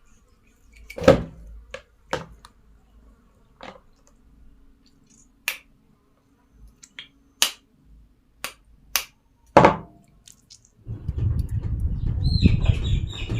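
Sharp, irregular knocks and taps, about eight of them spread over ten seconds, made while the freshly slaughtered francolin meat is being handled and prepared. About eleven seconds in, a dense scraping and rustling starts, with a short high chirp near the end.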